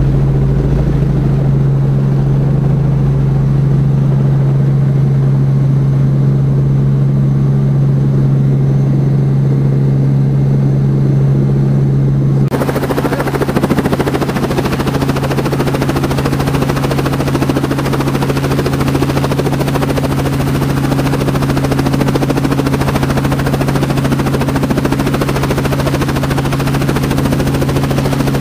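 Robinson R44 helicopter running, its engine and rotor making a loud, steady drone. About twelve seconds in the sound changes suddenly from the muffled drone heard inside the cabin to the open sound beside the landed helicopter, rotor still turning, with a rushing wash of rotor wind over the drone and a faint even beat of the blades.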